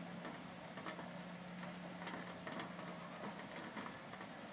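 Hailstones falling and striking leaves, ground and hard surfaces: a dense steady rush of irregular sharp clicks and ticks. A steady low hum runs underneath.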